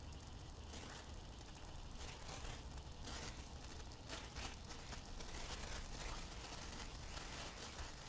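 Faint, irregular crackling of a Senko Hanabi sparkler made from potassium bicarbonate, sulfur and pine charcoal: tiny pops from the molten drop at its tip as it throws off branching sparks.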